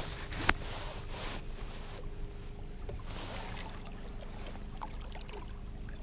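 A cast with a spinning rod: a swish, then a sharp click from the reel about half a second in, followed by the reel being worked as line is retrieved. Under it runs a steady low electric hum from the bass boat's trolling motor.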